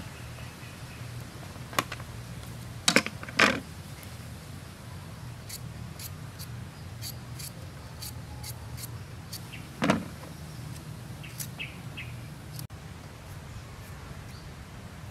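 Kitchen knife peeling a raw potato in a quick run of short, light scraping strokes, with a few sharp knocks of things being handled on the plate and table, the loudest two near the start and one about ten seconds in.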